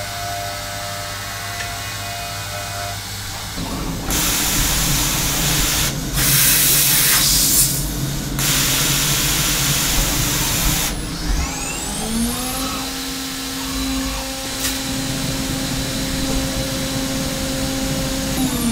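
Hermle C400 CNC machining centre. For the first few seconds an end mill cuts aluminium with a steady tone. Then come several seconds of loud hissing, a click, and the spindle spinning up with a rising whine that levels off into a steady high whine at 16,000 rpm for a 3.1 mm HPC drill.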